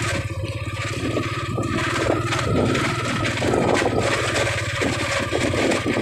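Motorcycle engine running steadily at low revs on a rocky track, with scraping and rattling from the rough ride over it.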